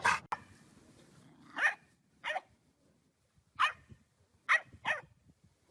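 A dog barking in short single barks, about five of them with irregular pauses between.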